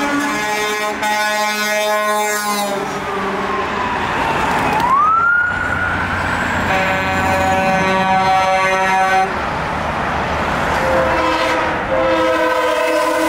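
Semi-truck air horns sounding in three long chord-like blasts, at the start, about seven seconds in and near the end. Between them a siren winds down, then swings sharply back up about five seconds in and slowly sinks again.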